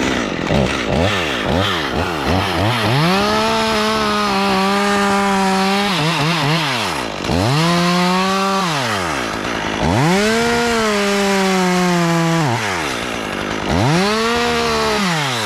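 Two-stroke chainsaw blipped a few times and then revved to full throttle and held there four times, dropping back toward idle between each run.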